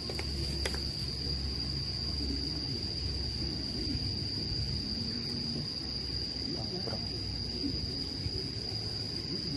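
Insects trilling in one steady, unbroken high-pitched tone over a low rumble, with a couple of faint clicks about half a second in.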